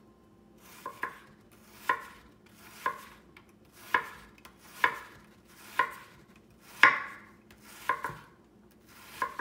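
Chef's knife chopping an onion on a wooden cutting board: slow, even chops about once a second, each a sharp knock on the board with a brief ring, about nine in all, the one near 7 seconds the loudest.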